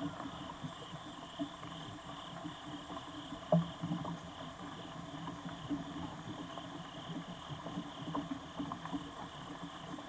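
Steady pulsing chorus of night insects, with scattered soft ticks and low knocks and one louder knock about three and a half seconds in.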